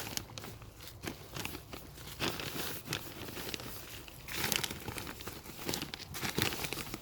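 Hands digging potatoes out of soil in a plastic soil bag, with irregular rustling and crinkling of the plastic.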